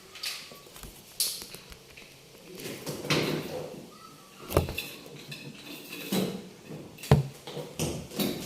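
Metal parts and tools clanking and scraping as they are handled, with two sharper knocks about four and a half and seven seconds in.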